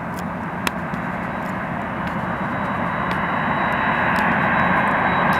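Jet engines of a four-engined Boeing 747-400 airliner, a steady rush growing gradually louder as the aircraft approaches, with a thin high whine coming in over the second half.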